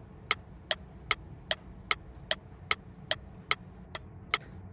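Evenly spaced short tick sound effects, about two and a half a second, an edited 'dot dot dot' awkward-pause effect, over a steady low hum.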